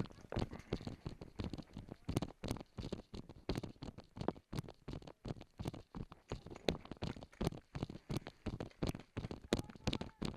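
Footsteps and gear rustling close to the microphone: irregular scuffs and knocks, several a second, with no gunfire pattern.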